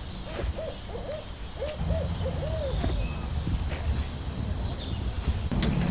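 Crickets chirping in a steady pulsing chorus, with a run of short rising-and-falling hooting calls in the first half. A low hum runs underneath, and a sharp click comes near the end.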